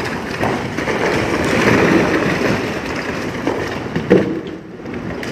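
Masonry and charred debris crashing down inside a fire-gutted church: a loud, rough rumbling noise, with a sharp knock about four seconds in before the noise falls away.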